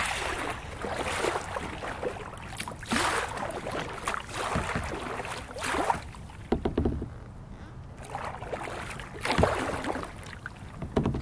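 Kayak paddle strokes swishing and splashing in the water, a burst every second or two, as the kayak is paddled and then brought to a stop.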